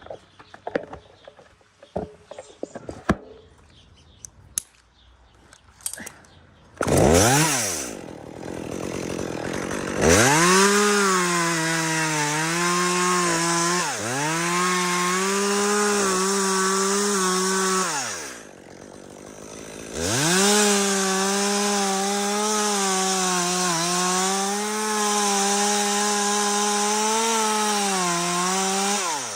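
Chainsaw revved once, then held at full throttle cutting dead aspen wood in two long runs. Its pitch sags and recovers under load, with a short drop to idle between the runs. Scattered clicks and knocks come before the saw starts.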